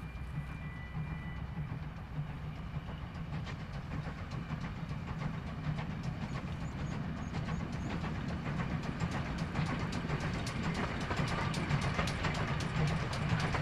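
Steam-hauled train approaching and growing louder, a steady low rumble with quick clicks from the wheels that come thicker and louder through the second half.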